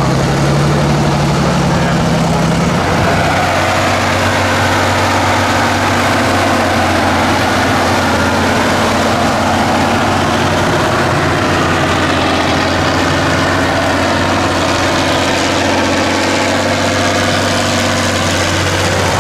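Tatra 8x8 trial truck's diesel engine running hard under load as the truck crawls through mud and up a slope; its note drops to a lower, steady pitch about three seconds in.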